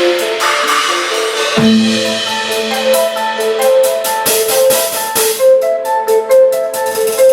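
Percussion jam on a large drum-and-cymbal set-up: a melodic run of short pitched mallet-like notes over drum and cymbal strikes, with a held low note coming in about one and a half seconds in.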